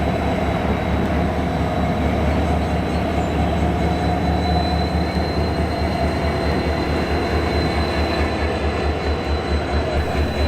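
Diesel locomotives running on rails, with a loud low engine throb that pulses rapidly and a thin, steady high-pitched wheel squeal over it.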